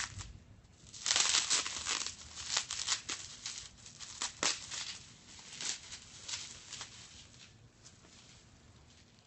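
Bubble-wrap plastic packaging crinkling and tearing as it is pulled open and off the board. It is loudest about a second in and thins out to a few scattered crackles over the next several seconds.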